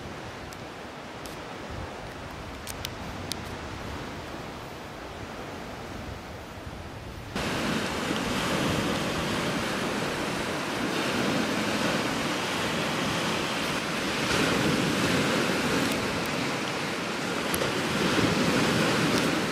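Sea surf breaking and washing on a shingle beach, with wind on the microphone. For the first seven seconds or so there is only a quieter wind hiss with a few faint clicks, then the surf comes in suddenly and louder.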